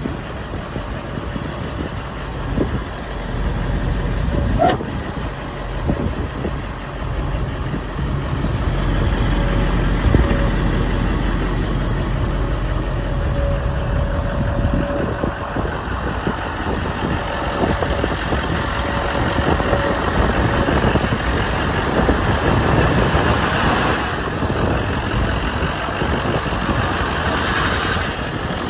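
2014 Ford F-350 dually pickup's engine idling steadily, a little louder from about eight seconds in.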